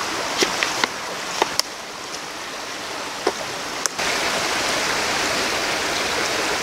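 A small rocky creek running steadily, with a few light clicks and taps in the first four seconds as the cardboard knife boxes are handled.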